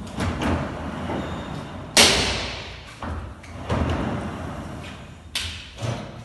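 Frameless glass accordion sliding panels being pushed along their track, the rollers running with a sliding hiss. About two seconds in, the panels meet with a sharp clack that rings on briefly, the loudest sound. Two smaller knocks follow near the end.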